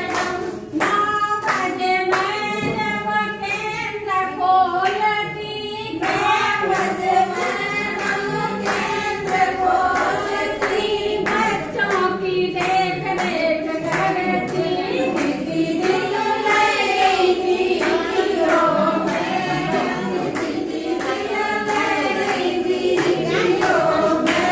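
A group of women singing a song together in unison, clapping along to a steady beat about twice a second.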